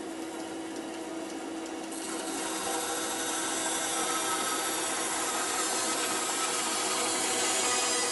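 Bandsaw running, its blade ripping lengthwise through a half section of green elm log to cut a 1-inch plank. A steady motor hum carries throughout; about two seconds in, a rasping hiss from the blade in the wood grows louder and holds.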